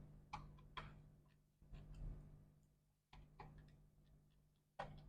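Faint, scattered light clicks and taps of small repair tools handled on a MacBook Pro's back cover as it is being removed, with a sharper click near the end.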